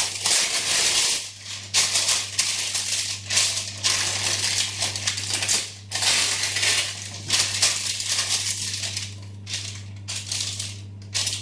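Baking paper crinkling and rustling in quick, uneven scrunches as it is pressed and folded into a glass baking dish, with a steady low hum underneath.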